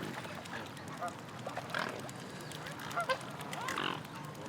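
Swans giving short calls, about five spaced through a few seconds, some sliding up in pitch, over a faint steady background wash.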